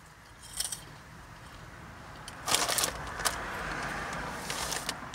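Crunching of crispy potato snack sticks being chewed, with crackles from the foil snack bag being handled; the loudest crackles come about two and a half seconds in and again near the end.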